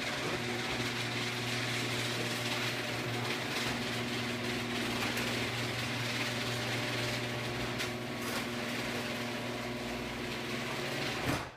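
Genie screw drive garage door opener running as it closes the door: a steady motor hum with a mechanical whir that cuts off abruptly near the end as the door reaches the bottom.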